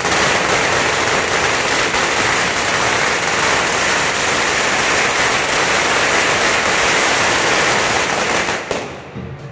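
A string of firecrackers going off in a dense, continuous crackle that dies away about a second before the end.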